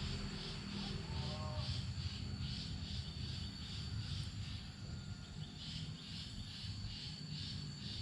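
Insect chirping in a steady rhythm, about two to three pulses a second over a constant high-pitched drone, with a low rumble underneath and a brief call about a second in.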